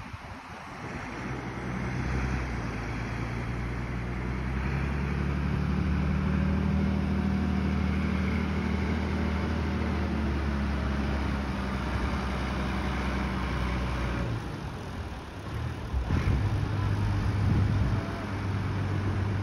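Farm tractor's engine running as it tows a boat on its trailer across the beach sand, steady for most of the time, easing off briefly near the three-quarter mark, then running louder again near the end.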